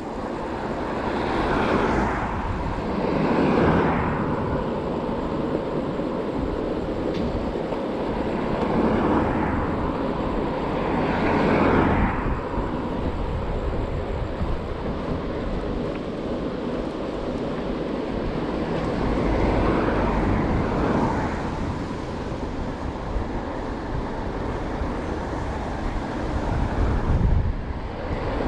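Steady wind on the microphone and tyre-on-road noise from an electric bike being ridden along a road, with cars passing now and then, each a swell lasting a second or two.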